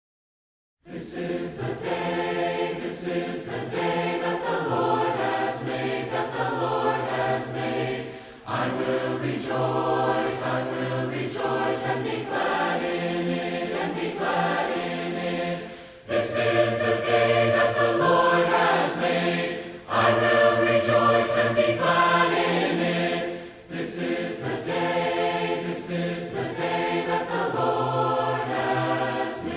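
Voices singing a hymn a cappella in parts, with no instruments, starting about a second in. The singing comes in phrases separated by short breaks.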